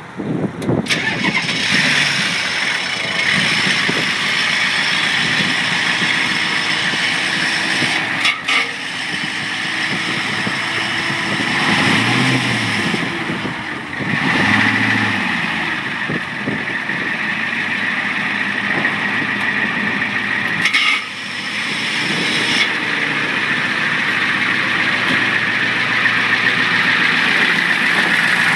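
Ford F-350 pickup's engine starting about a second in and then running steadily at idle.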